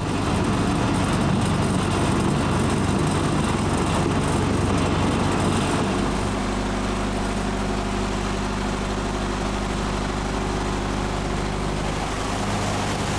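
Lake tour boat's engine running steadily as the boat moves through the water, a constant low drone that settles into a smoother, even hum about halfway through.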